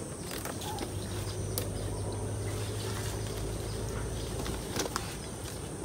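Outdoor orchard ambience: a steady high insect drone over a low rumble, with a couple of sharp clicks.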